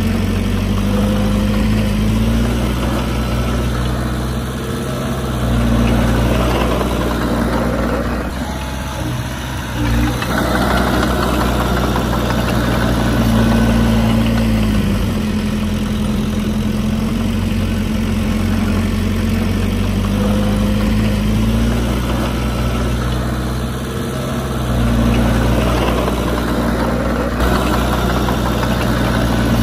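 Bulldozer's heavy diesel engine running steadily, its pitch rising and settling every few seconds as the load changes, with a short lull about eight seconds in.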